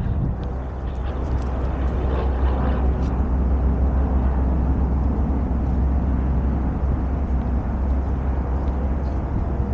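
Wind blowing over the microphone, a steady low rumble.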